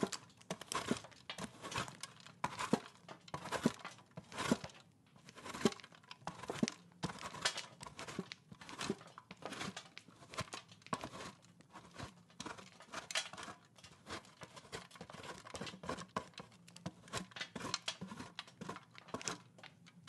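Mozzarella being shredded on a metal cheese grater: repeated rasping strokes, about two a second.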